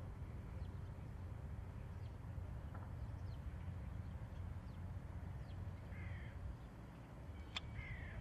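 Birds calling over a low steady rumble: a few faint short chirps, then two louder calls, each falling in pitch, about six and seven and a half seconds in.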